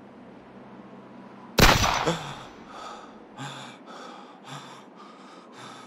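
A single pistol shot about a second and a half in, with a short ringing tail, followed by a man's repeated gasping breaths, about two a second.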